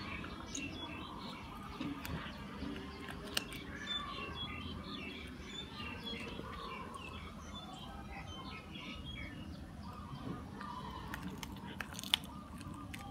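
A cat chewing and gnawing a piece of raw chicken on the bone, with a sharp crunch about three seconds in and another near the end. Birds chirp steadily in the background.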